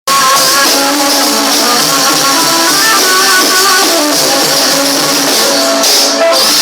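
Loud instrumental introduction of an Egyptian popular song, a quick stepping melody over accompaniment, starting abruptly with no singing yet.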